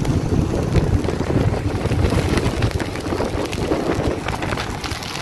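Wind buffeting the microphone over the rumble of a moving vehicle.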